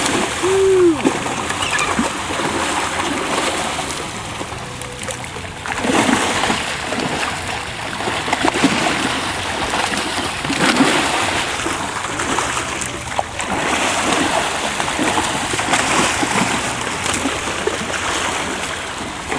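Water splashing in repeated surges as Pacific bluefin tuna strike at sardines thrown on the surface: a feeding frenzy like bluefin on a bait ball.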